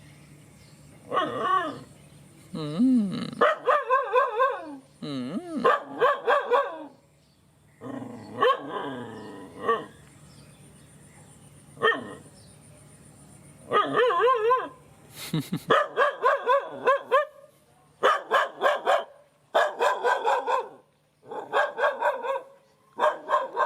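A dog barking in repeated bursts of several quick barks each. In the first few seconds some calls glide up and down in pitch, like whines between barks.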